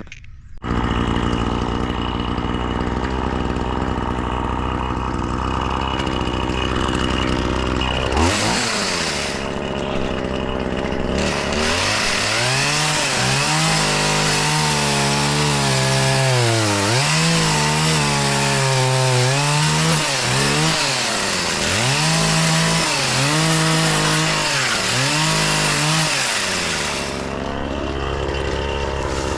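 Two-stroke chainsaw running, first idling steadily, then revved up at about eight seconds. It then cuts into a tree trunk, its pitch dipping and rising again and again as it bogs under load, before dropping back to idle near the end.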